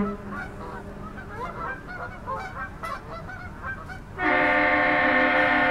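A deep, single-note ship's horn cuts off right at the start. After a few seconds of faint scattered sounds, a loud multi-tone air horn starts about four seconds in and holds a steady chord, like a train horn, as part of a horn salute exchange in the ship canal.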